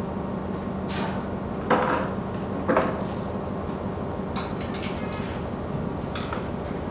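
Knocks and clicks from rope work on the wooden steps of an embarkation ladder: two sharp knocks about two and three seconds in, then a quick run of light clicks past the middle. Under them is the steady hum of ship machinery.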